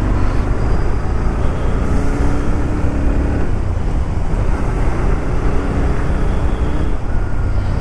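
Motorcycle on the move: wind rushing over the microphone above a steady low engine drone, with a faint engine note that rises slowly a couple of times.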